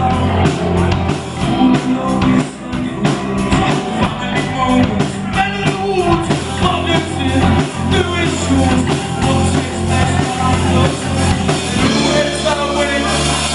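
A live rock band playing with a singer, drums keeping a steady beat.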